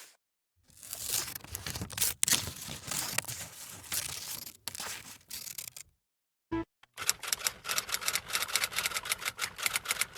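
Crackling, rustling noise with scattered sharp clicks for about five seconds, then a short tone, then a fast run of sharp clicks.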